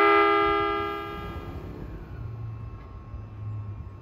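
The end of a long horn blast from a JR 205-series electric train: many steady tones that hold for about a second, then fade away. A low steady hum follows from about two seconds in.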